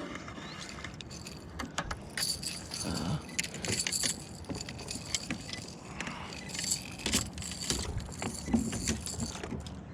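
Irregular light metallic clinking and clicking of fishing gear being handled in a kayak, over faint background hiss.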